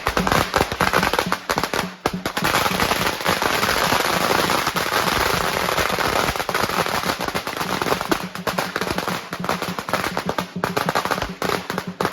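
A long string of firecrackers going off, a dense, rapid run of sharp pops and crackles that thins out toward the end.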